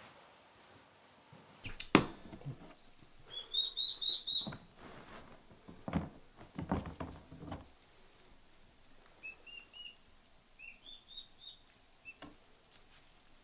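Turkey poults peeping in short high chirps, a quick run of about five and then scattered peeps later. Knocks and rattles of a plastic pet carrier and its wire door being handled, the loudest a sharp knock about two seconds in.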